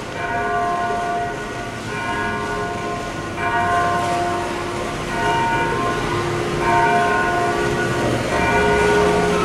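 Church bells ringing in slow, even strokes, a new note about every second and a half, each ringing on until the next.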